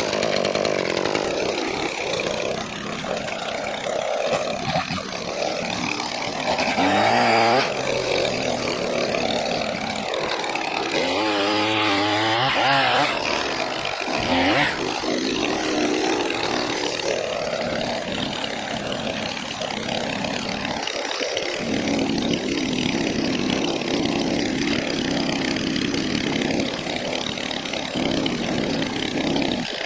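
Two-stroke gas pole saw running under throttle, its engine pitch rising and falling as it is revved, with the clearest revving about a quarter of the way in and again near the middle.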